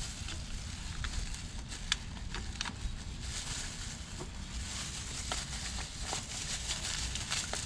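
Scattered light clicks and taps of small carburetor parts being handled and fitted by hand, over a low steady rumble.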